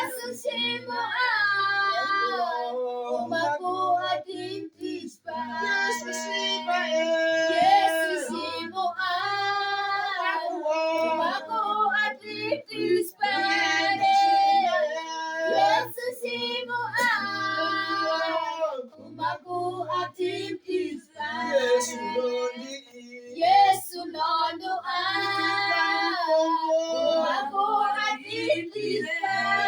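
A high voice singing a slow, repetitive worship chorus in sustained phrases, with brief pauses between them.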